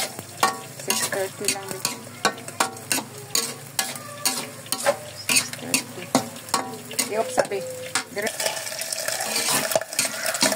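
Spatula scraping and knocking against a metal wok as noodles and vegetables are stir-fried, about two strokes a second over a steady sizzle. The sizzle grows louder near the end.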